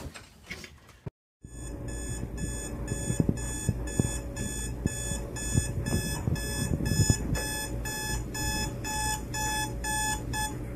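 Smartphone alarm beeping in a fast, even pattern of about two beeps a second, with a lower tone joining in about halfway through.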